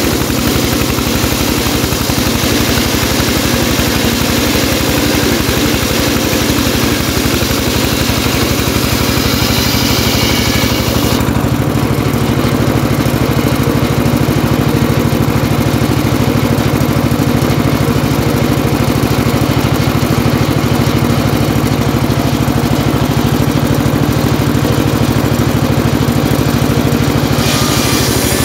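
Engine-driven homemade circular saw bench running steadily. For about the first eleven seconds the blade cuts timber with a high hiss over the engine. The hiss then stops while the blade spins free and the engine note shifts, and cutting starts again near the end.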